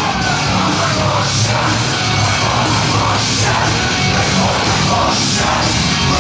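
Loud heavy rock music played over a club sound system, with a steady heavy low end and crashing cymbal-like hits about once a second.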